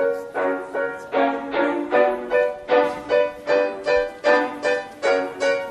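Background music: a melody of short, evenly spaced pitched notes, about three a second, each struck sharply and then fading.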